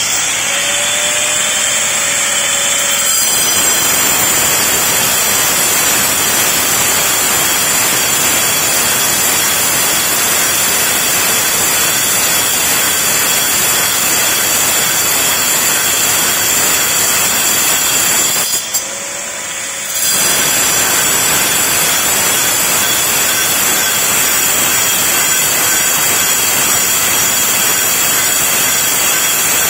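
Angle grinder with a diamond vacuum-brazed cutting disc, spinning freely for about three seconds, then cutting through a steel rod with a steady, harsh grinding. About two-thirds of the way through it lifts out of the cut and spins freely for a second before biting in again.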